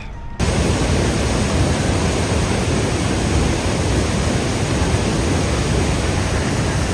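Steady loud rushing roar of Niagara Falls' cascading water, cutting in abruptly about half a second in.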